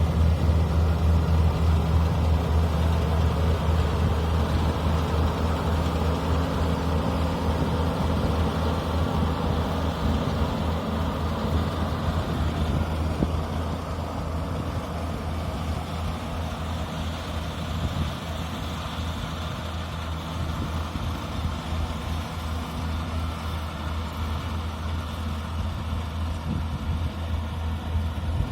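Daedong DSC62G half-feed combine harvester's diesel engine running steadily with a low hum, easing off slightly about halfway through.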